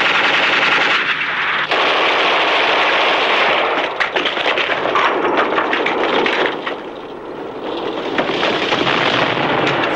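Battle gunfire: a dense crackle of small-arms and machine-gun fire over a steady din, with a run of sharp separate shots between about four and six seconds in.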